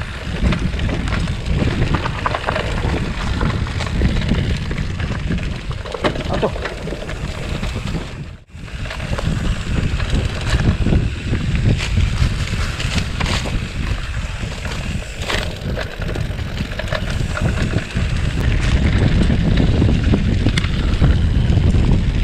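Wind buffeting the microphone during a bicycle ride on a rough trail, with scattered clicks and rattles over the bumps. The sound drops out briefly about eight seconds in.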